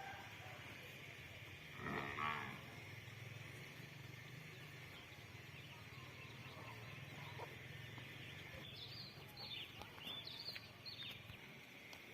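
A cow moos once, briefly, about two seconds in. Several short high chirps, like small birds, come in the last few seconds.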